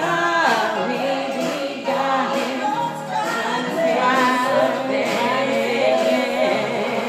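Music: a song with a woman singing over sustained backing notes.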